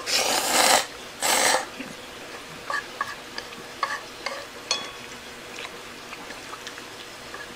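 Two loud slurps of thick yakisoba noodles, the first longer, then a few faint clicks.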